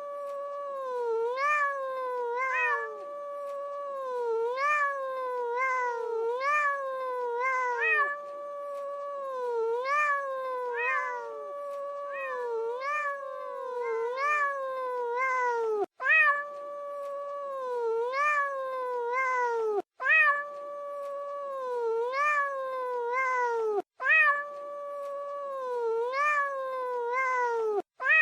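A cat yowling: one long, wavering howl whose pitch repeatedly jumps up and slides back down. In the second half it breaks off briefly about every four seconds.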